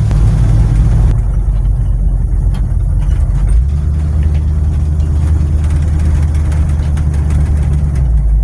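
Car engine running, with road and engine noise heard inside a bare cabin that has no interior trim and holes rusted through the body. The low engine note shifts in pitch a few times as the speed changes.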